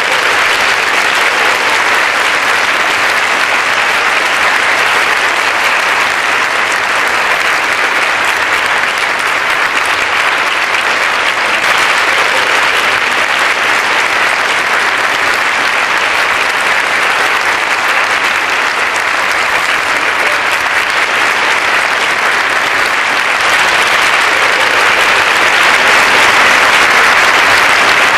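An audience applauding steadily, growing a little louder near the end.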